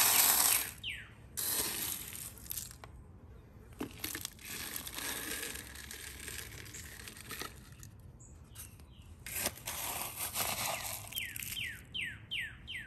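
Dry chick crumble feed poured from a scoop into a plastic chick feeder: a rushing, rattling hiss that comes and goes with each scoop, with a few sharp taps. Near the end, about five quick falling chick peeps.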